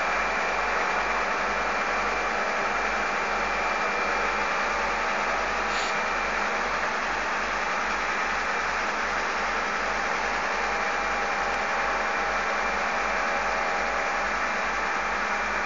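Heavy diesel engines of a crane truck and a tractor running steadily at an unchanging speed.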